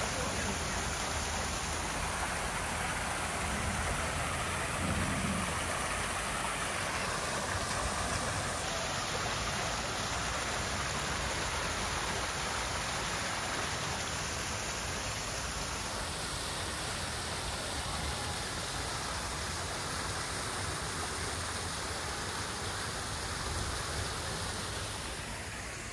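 Small waterfall spilling into a lily pond: a steady splashing of falling water.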